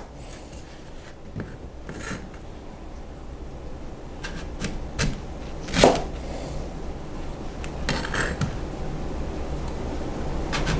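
Broad-bladed kitchen knife cutting pears in half on a plastic cutting board: scattered soft knocks of the blade meeting the board and fruit being set down, the loudest about six seconds in.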